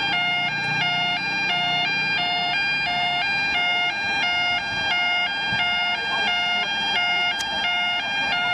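Yodalarm YO5 level crossing alarm sounding: a two-tone yodel switching between two pitches about three times a second, over a steady buzzing tone. It warns that the crossing has activated for an approaching train.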